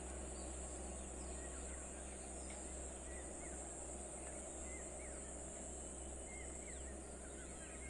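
Birds chirping in many short, scattered calls over a steady high-pitched buzz and a low hum.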